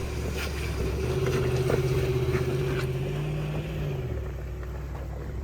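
RAM 2500 Power Wagon's 6.4-litre Hemi V8 pulling the truck up a rocky incline at crawling pace. The engine note rises a little about a second in, holds, and eases off about four seconds in.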